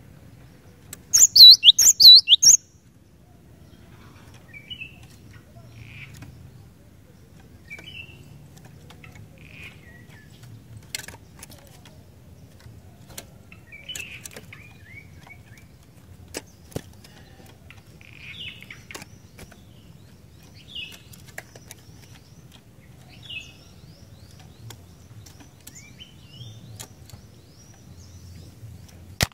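Cinereous tit (gelatik batu) singing: a loud burst of rapid, repeated high whistled notes about a second in, lasting about a second and a half, followed by faint scattered chirps and a few clicks.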